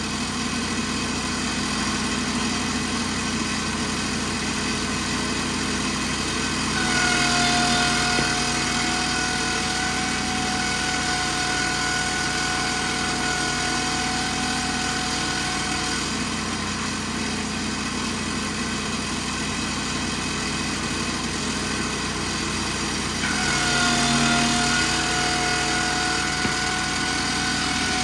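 Small engine of the sawing equipment running steadily. A steady high whine comes in about seven seconds in and drops out near sixteen seconds, then returns about twenty-three seconds in, each time a little louder.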